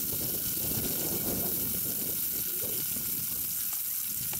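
Wind buffeting the microphone outdoors: a steady rushing hiss with uneven low rumbling gusts.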